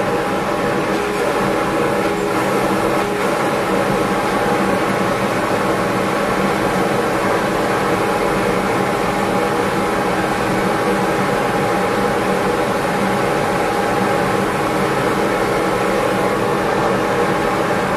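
Shop Fox W1685 dust collector running steadily on its first test run after assembly: a steady whine over a loud rush of air drawn through the intake.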